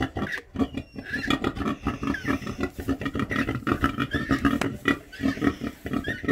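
Mulefoot pigs grunting in a rapid, steady run of short grunts.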